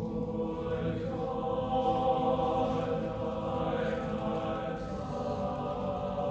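Choir singing slow, held chords, the voices swelling slightly about two seconds in.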